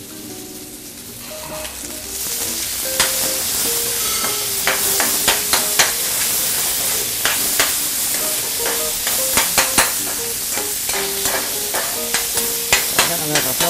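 Chicken frying in a metal pan on a gas burner. The sizzle grows louder about two seconds in and stays up, with many sharp clicks and scrapes as a metal spatula stirs against the pan.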